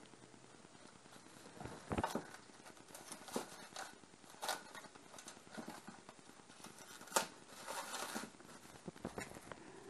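Plastic cling film crinkling and crackling as hands pull at it over a glass bowl, in scattered sharp clicks with a short rustle about three-quarters of the way through.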